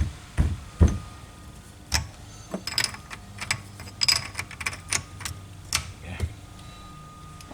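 Irregular metal clicks and knocks from engine parts and hand tools being handled during engine reassembly. There are two heavier knocks in the first second, then a run of sharper clicks and taps that stops about six seconds in.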